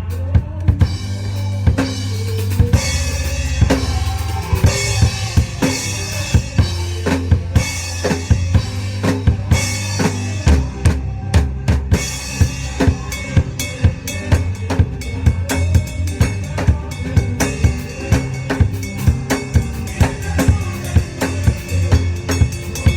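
Drum kit played in gospel-style cymbal chops: cymbal crashes locked with bass drum and snare hits. A steady low drone sits underneath for about the first ten seconds, and after that the strikes come faster and denser.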